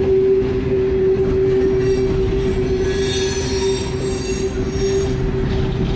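Loaded CSX open hopper cars rolling past at close range: a steady rumble of steel wheels on rail, with a continuous squeal tone from the wheels. Higher, shriller squealing joins in from about three to five seconds in.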